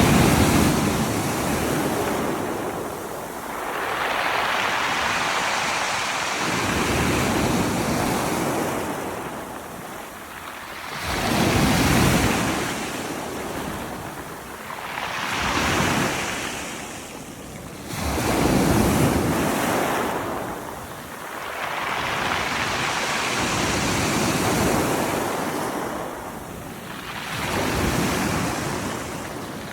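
Sea waves breaking on a beach of rounded pebbles and rolling the stones as they wash back, in swelling surges every three to four seconds.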